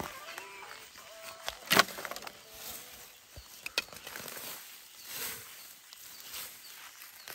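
A few sharp knocks, the loudest about two seconds in and another near four seconds, with softer noisy swells between them.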